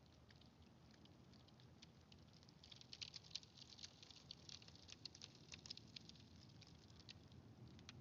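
Faint crackling of thawing lake ice melting: many tiny irregular clicks and pops, thickest in the middle stretch.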